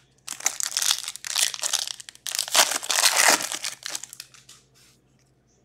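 Hockey card pack wrapper crinkling and tearing as it is ripped open by hand, in two long rustling bursts of about two seconds each.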